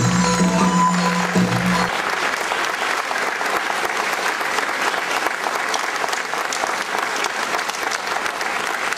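Recorded dance music ends about two seconds in and gives way to steady audience applause, a dense clapping that carries on.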